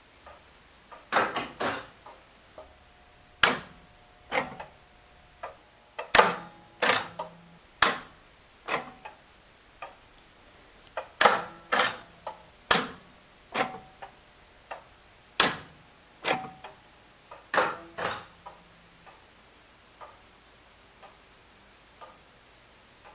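Standard Electric Time Co. electric master clock ticking about once a second, sharp metallic clicks from its movement, some doubled and briefly ringing. The clicks are loud through most of the stretch and fade to faint ticks near the end.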